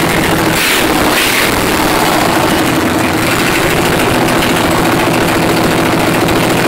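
Briggs & Stratton 18.5 HP I/C twin-cylinder riding-mower engine running steadily through custom open header pipes, loud.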